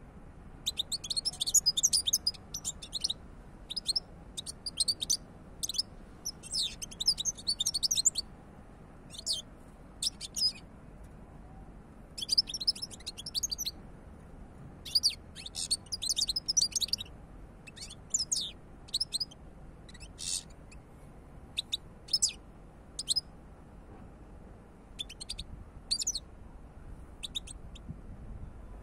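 European goldfinch singing: quick, high twittering phrases, some running a couple of seconds, broken by short pauses and single notes.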